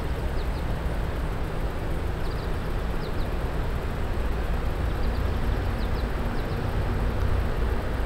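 Steady low rushing of a river's fast, choppy current over rocks.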